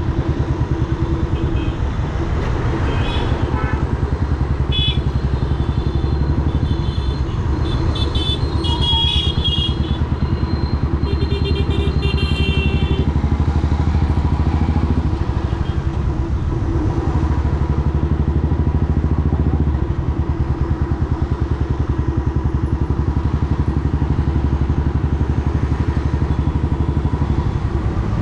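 Royal Enfield Classic 350's single-cylinder engine running steadily as the motorcycle is ridden, its firing pulses coming fast and even. Several short high-pitched tones sound over it in the first half.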